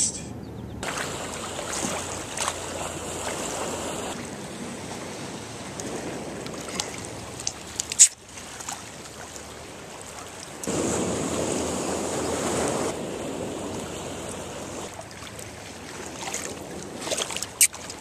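Atlantic seawater washing against shoreline rocks, with wind on the microphone. The wash swells louder for a couple of seconds past the middle, and there is a single sharp click a little before halfway.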